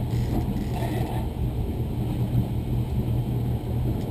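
Boat motor running steadily at trolling speed, a low even drone.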